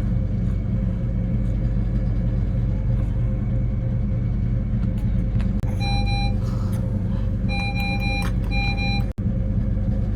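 Steady low mechanical hum, with a few short electronic beeps about six to nine seconds in.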